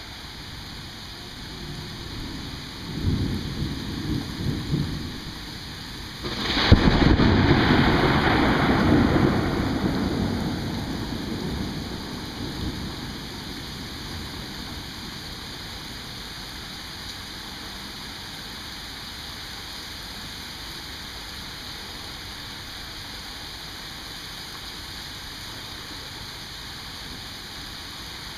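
Thunder over steady rain: a low rumble about three seconds in, then a sharp crack a few seconds later that opens into a loud rolling rumble, fading away over about five seconds. Rain hisses steadily throughout.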